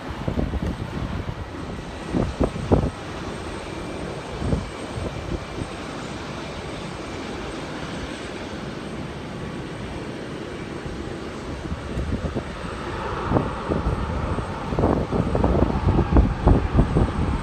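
Jet airliner engine noise that grows louder over the last few seconds, with gusts of wind buffeting the microphone.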